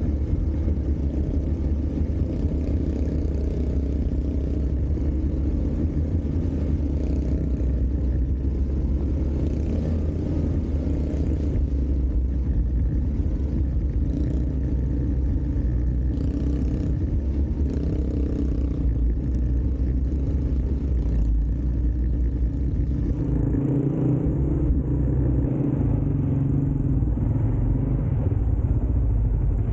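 ATV engine running steadily while the machine is ridden, with a deep, continuous rumble.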